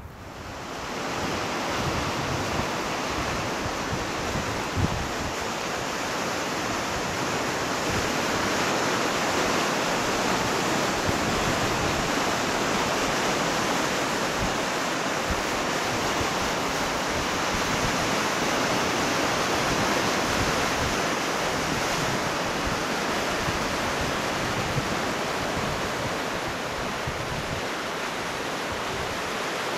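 Sea surf breaking and washing over a boulder beach below a cliff: a steady rush that swells up over the first second or two. Gusts of wind buffet the microphone underneath.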